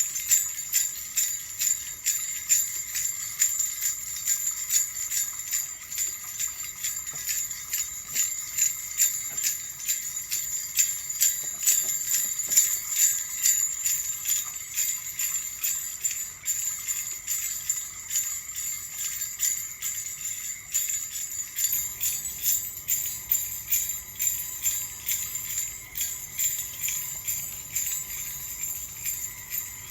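Small jingle bells shaken over and over in a steady rhythm.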